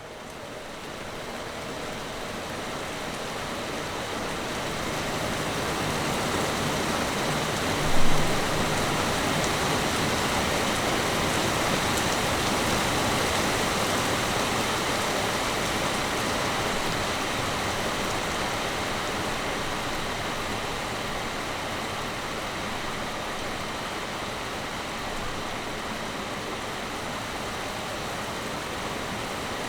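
Heavy rain pouring steadily, fading in over the first few seconds. A single brief thump stands out about eight seconds in.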